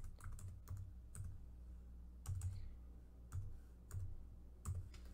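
Computer keyboard being typed on: about ten soft keystrokes, irregularly spaced, as a name is typed in letter by letter.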